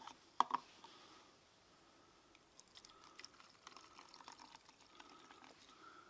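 A small plastic tub knocked down twice on a wooden table, then bio-ethanol fuel poured from a large plastic bottle into the tub, a light trickle with quick crackly ticks.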